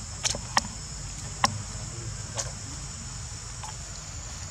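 Steady high-pitched chorus of insects, with a few sharp clicks in the first half, the loudest about a second and a half in.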